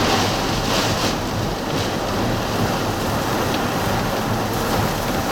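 Strong thunderstorm wind rushing around a vehicle, a steady loud rush with slight swells of gusts.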